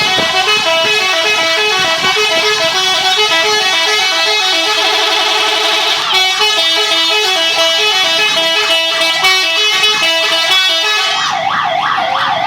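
Indonesian 'telolet' multi-tone bus air horn playing a tune of quick stepping notes. About eleven seconds in it switches to a fast warbling, siren-like wail.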